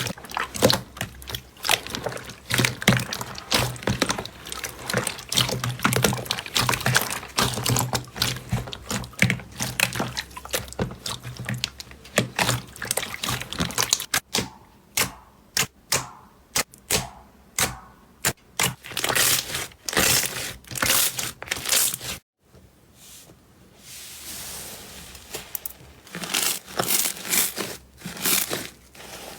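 Slime being squeezed and poked by hand, making a dense run of crackling, popping clicks. The clicks thin out about halfway through, the sound cuts out briefly about 22 seconds in, and after a soft hiss the popping resumes.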